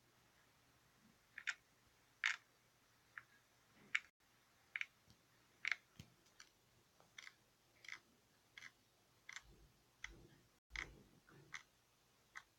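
Slime being handled, giving a quiet series of small sharp clicks and pops at an irregular pace of about one to two a second.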